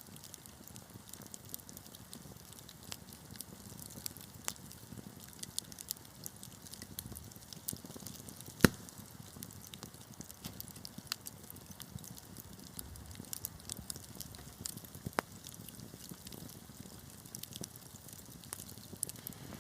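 Wood fire crackling, with a steady run of small sharp pops and snaps over a low rumble, and one much louder pop about halfway through.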